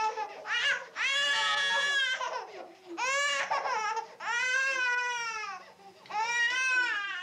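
Infant crying in a series of about four high-pitched wails, each about a second long, with short breaths between them.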